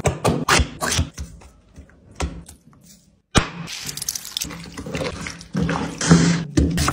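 Close-up food-preparation sounds: a few sharp clicks from a glass spice jar's metal lid, then wet splashing and squelching as lemon juice and marinade go onto raw chicken pieces in a pan and are mixed in.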